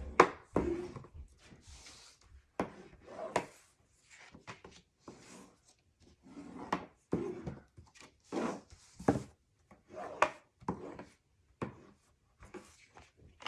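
Cardstock flaps being folded along their score lines and creased down by hand: irregular rustles, rubs and sharp little taps and crackles.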